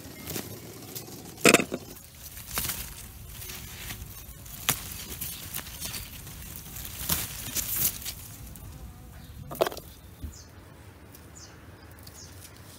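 Leaves and branches of fruit bushes rustling and crackling close to the microphone as berries are picked by hand, with several sharper snaps and rustles scattered through.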